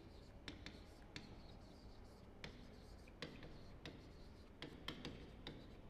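Chalk writing on a chalkboard: faint, irregular taps and light scratching as words are written.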